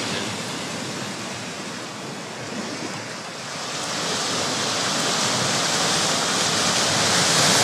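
Ocean swell surging in over a rocky shoreline, white water rushing and foaming. The surge builds and grows louder from about halfway through.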